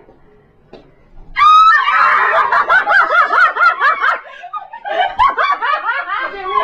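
A woman screams in fright about a second and a half in, a sudden high shriek. She then keeps shrieking and laughing in panic, with a short pause about two-thirds of the way through.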